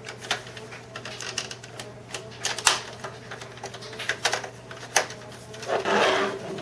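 Plastic parts of a refrigerator pantry drawer end cap and its vent-control rod being fitted together by hand: irregular sharp clicks and taps, with a louder, longer handling sound near the end.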